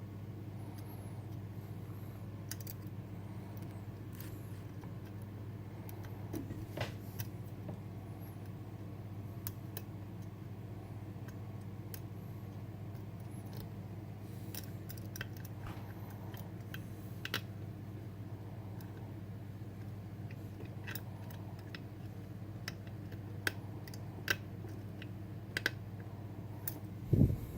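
Lock pick and tension tool working the sliders of a Bellock cam lock: scattered small metallic clicks, irregular and a few seconds apart, over a steady low hum. A low thump comes near the end.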